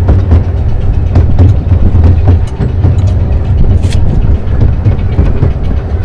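Garden railway train running along the track, heard from on board: a steady low rumble with frequent clicks and knocks of the wheels and carriages, and a brief hiss about two-thirds of the way through.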